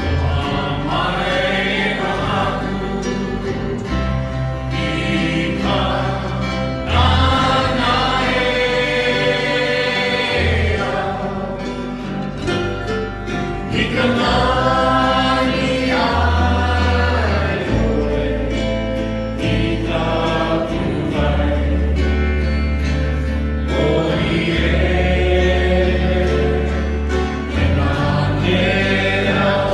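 Christian worship song: a group of voices singing in sustained phrases over guitar and a low bass line.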